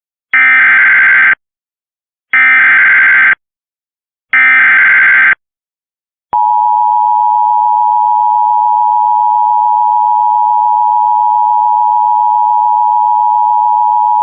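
Emergency Alert System header: three one-second bursts of screeching SAME data about two seconds apart, then the steady EAS attention tone held for about eight seconds. It signals the start of a severe thunderstorm warning.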